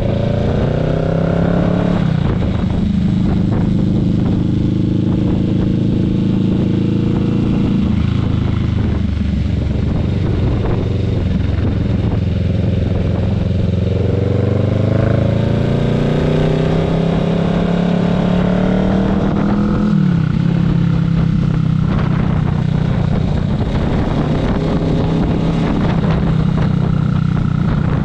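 Motorcycle engine pulling under load while riding. Its pitch climbs and drops sharply a few times as it shifts up through the gears, then holds steady at cruising revs.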